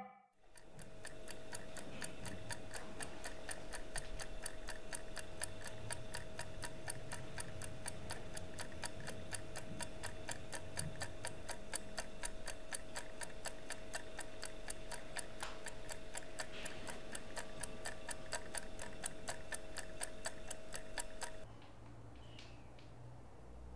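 Steady, rapid clock-like ticking, about four ticks a second, over a faint steady tone. It stops suddenly about 21 seconds in, leaving quiet room tone.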